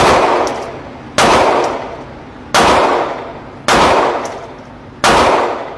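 Five gunshots fired at a steady pace, about one every second and a quarter. Each loud crack is followed by a long fading echo.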